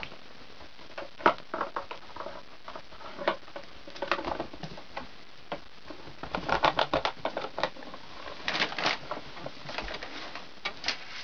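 Irregular taps, clicks and scuffles of kittens playing with their toys and each other, coming in small flurries.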